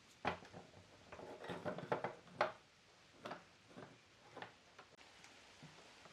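A run of about a dozen irregular light knocks and clicks, the loudest around two seconds in, like pieces of wood being handled and set down on a workbench.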